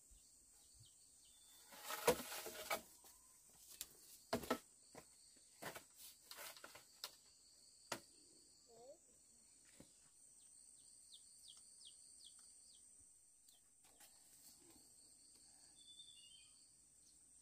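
Scattered clicks, snaps and rustles of fresh bamboo shoots and banana leaf being handled and laid out, busiest in the first half. A steady high insect drone runs underneath, and a quick run of short chirps comes about two-thirds of the way through.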